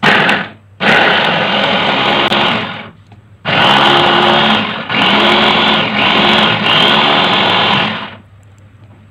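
Small electric mini chopper whirring as it grinds spice paste of shallots, garlic, candlenut, ginger and turmeric with a little water. It runs in three pulses: a brief one at the start, one of about two seconds, then a longer one of about four and a half seconds that stops about eight seconds in.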